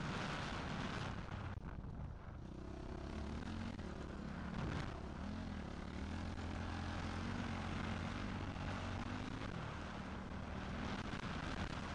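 Motocross bike engine running under load, its pitch rising and falling with the throttle as the bike rides through sand, with wind noise over the microphone.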